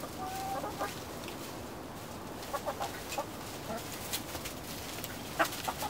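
Mixed flock of backyard hens (Rhode Island Reds, Wyandottes, Black Australorps) clucking in short, scattered calls. There is one held note near the start and a quick run of clucks midway, with a few sharp clicks, the loudest near the end.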